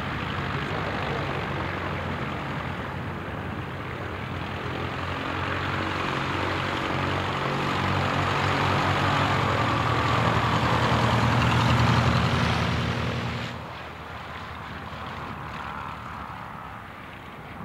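Single-engine light aircraft's piston engine and propeller running as it taxis close by, growing louder to a peak about twelve seconds in. At about thirteen and a half seconds it cuts off abruptly, giving way to the fainter engine of another light aircraft flying low over the strip.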